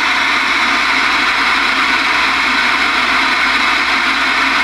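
Steady hiss of band noise (static) from a General Stonewall Jackson 10-meter radio's speaker, receiving an open channel with no station transmitting.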